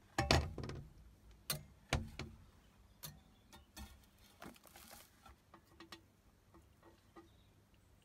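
A sheet of sandblasted flashed glass is handled while its sandblasting resist is removed, making irregular clicks and knocks. The loudest knocks come in the first two seconds, a short rasp comes about halfway, and lighter ticks follow.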